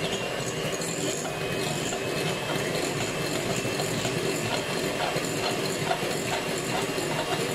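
Electric hand mixer running steadily, its twin beaters whipping fresh cream in a glass bowl.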